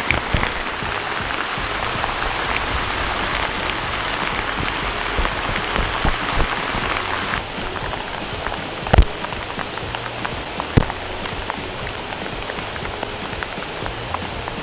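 Heavy rain falling on the river and its stony bank, a steady hiss that turns lighter and duller about halfway through. Two sharp knocks stand out over it near the middle.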